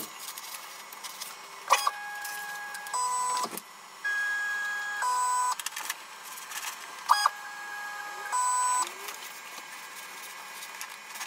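Stepper motors of a Weedo ME40 3D printer whining in three short moves, each about a second and a half long and changing pitch partway through, as the print head travels between bed-levelling points during assisted bed levelling.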